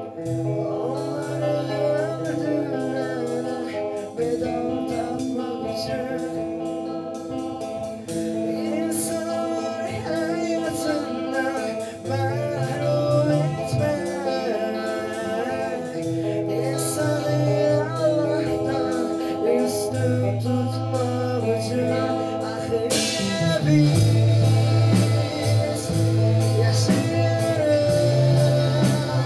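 Rough demo recording of a rock song: a lead vocal sings over electric guitars, bass guitar and drums. About three-quarters of the way through, cymbals crash in and the band gets louder.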